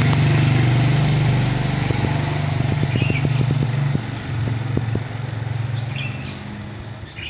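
Motor scooter engine running steadily as it pulls away, loud at first and fading after about four seconds as it recedes.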